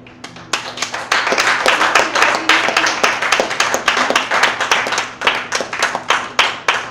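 Audience applauding at the end of a performed poem. The clapping starts right away, builds to a dense peak within about a second, then thins to scattered claps near the end.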